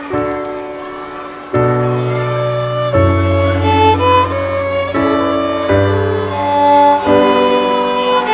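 Instrumental music, an intro of held chords with a violin-like melody on top. A bass part comes in about a second and a half in, and the chords change roughly every second.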